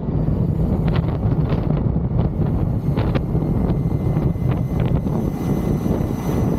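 Wind buffeting the microphone of a camera mounted on an electric motorcycle riding along at road speed: a steady low rumble with short crackles every second or so.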